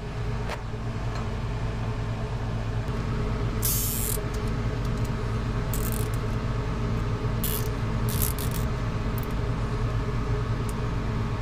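Steady machine hum with several even tones, its source not named, broken by a few brief rustles as wires are handled at the autopilot pump.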